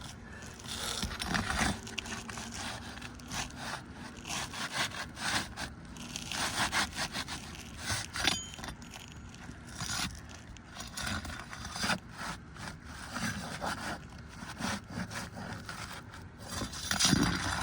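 Asphalt roof shingle scraping and rubbing in irregular strokes, as a new shingle is worked up under the overlapping course above.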